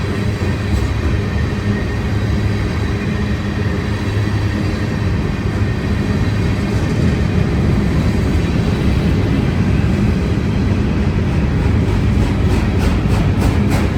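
Union Pacific manifest freight train rolling past: a steady, loud low rumble of wheels on rail. A quick run of regular ticks, about four a second, comes in near the end.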